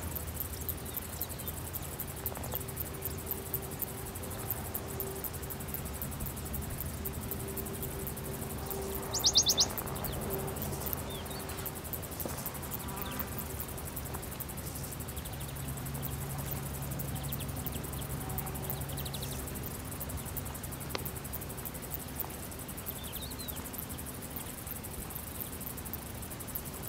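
Insects chirring steadily at a high pitch over a low steady hum, with a short burst of quick clicks about nine seconds in that is the loudest moment.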